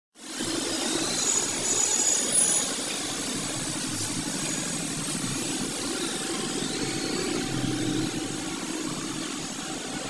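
Steady outdoor background noise with a low hum, with a few faint high steady tones in the first few seconds.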